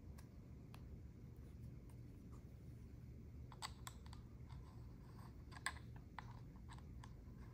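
Faint quick clicks and ticks of a metal thumbstick being screwed into a DJI RC-N1 drone remote controller and of fingers handling its plastic case. They start about halfway through, over a low background hum.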